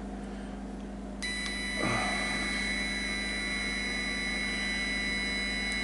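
3Doodler Create 3D printing pen's drive motor starting about a second in and running steadily with a high whine as it feeds ABS filament out through the hot nozzle. A steady low hum runs underneath.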